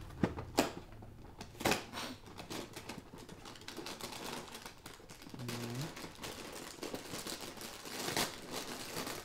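A cardboard cereal box being torn open by hand: a run of sharp clicks, rips and crinkling rustles as the top flaps are pulled apart.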